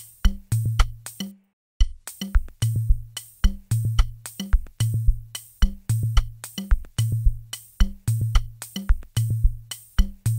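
Programmed drum loop playing back from FL Studio: a deep kick with a held low tail under snare or rim hits and quick hi-hat ticks in a repeating groove. This is a partial drum mix, with the drum channels switched on one at a time. Playback cuts out for a moment about one and a half seconds in, then the loop starts again.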